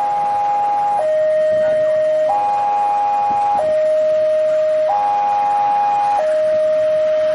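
Railway level-crossing warning alarm sounding: an electronic two-tone signal that alternates evenly between a lower single tone and a higher chord, each held about a second and a quarter, as a train approaches the crossing.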